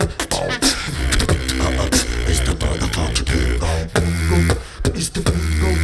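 Live beatboxing: a fast run of vocal drum hits, clicks and snares over deep, sustained bass tones, with sung pitched lines woven in.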